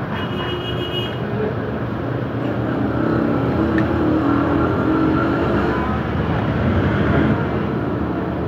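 Steady motor-vehicle traffic noise, with an engine hum that wavers in pitch and swells in the middle, and a few faint clicks.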